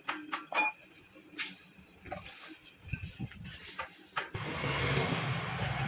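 Small metal motorcycle engine parts clinking and knocking as the gearshift shaft and selector mechanism are fitted into the crankcase. A little after four seconds in, the low steady hum of a vehicle engine comes up and grows louder.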